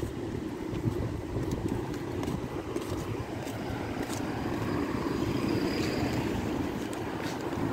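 Outdoor street noise heard while walking along a paved road: a steady low rumble with a few scattered light clicks.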